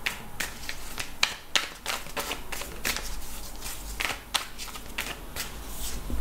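A deck of tarot cards being shuffled by hand, overhand: an irregular run of sharp clicks and slaps of card against card.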